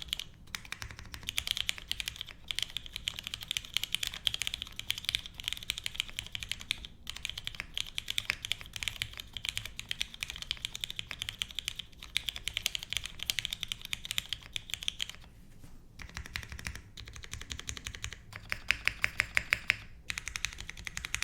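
Fast typing on a Singa Kohaku mechanical keyboard with lubed and filmed Cherry MX Black linear switches in a full aluminium plate, with XMI keycaps and no foam dampening. It is a dense stream of keystroke clacks with a couple of brief pauses, and a run of louder, evenly spaced strokes near the end.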